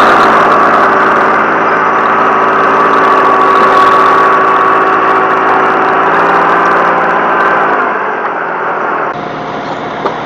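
Tractor engine running at steady high revs while working, with a whine; the revs fall away just before eight seconds in, and just after nine seconds the sound cuts abruptly to a quieter engine running.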